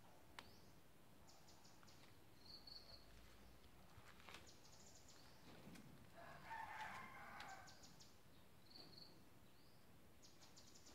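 Faint rooster crowing once, about six seconds in, over a quiet outdoor background, with a small bird's quick high chirps recurring every few seconds.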